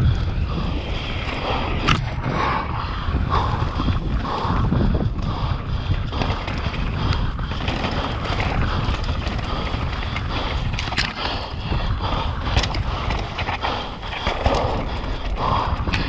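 Mountain bike descending a dirt singletrack: a steady rough rumble of the tyres rolling over the dirt, mixed with wind on the microphone, broken by sharp clicks and rattles from the bike now and then.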